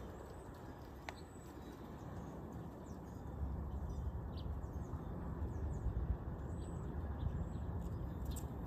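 Outdoor ambience: a steady noisy rumble that grows louder about three seconds in, with a few faint, short high chirps over it.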